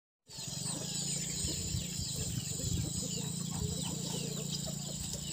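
Birds chirping with many quick high calls over a steady low hum.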